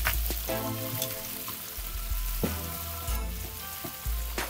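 Hot oil sizzling and bubbling steadily around a large fish deep-frying in a pot, with a few light clicks as a knife and metal tongs work through the fish's head against the pan.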